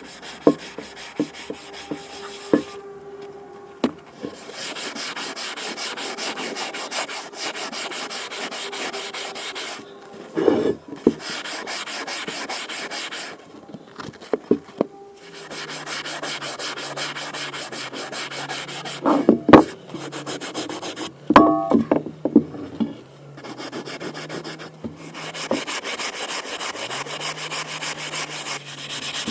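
Abrasive rubbing on a rusted cast iron skillet, stripping the rust. It comes in runs of a few seconds with short pauses between them, and a few sharp knocks and clanks of metal fall in between.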